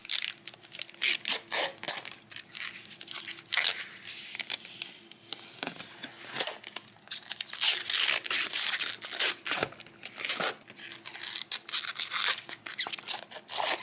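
Protective film being peeled off laser-cut acrylic sheets: a long run of crackling rips, some short and sharp, some drawn out, with the crinkle of the loose film.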